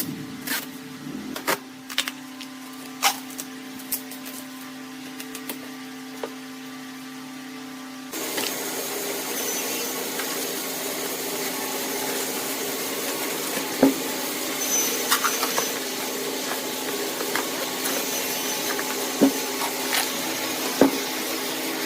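Wood lathe running with a steady hum and scattered light clicks; about eight seconds in, a louder, even hiss sets in as something is held against the spinning work, with a few sharp knocks.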